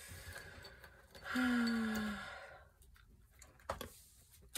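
A woman's sigh: one breathy, voiced exhale, about a second long, falling slightly in pitch, starting about a second in. A few faint clicks follow near the end.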